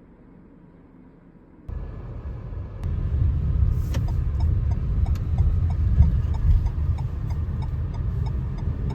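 Low, steady rumble of a moving car, starting abruptly about two seconds in, with faint ticks about twice a second.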